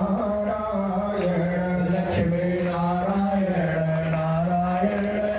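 Devotional chanting sung over loudspeakers: a voice holds long notes and steps back and forth between two pitches, with a few scattered hand claps from the audience.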